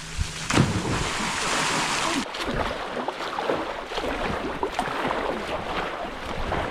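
Rushing and splashing water in a waterfall plunge pool, with a loud splash about half a second in and irregular splashing after it.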